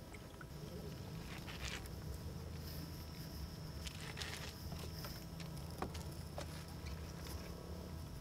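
Outdoor ambience on the water: a steady low rumble of wind and water, with a few soft rustles and light knocks as water-lily stems are handled in a wooden boat.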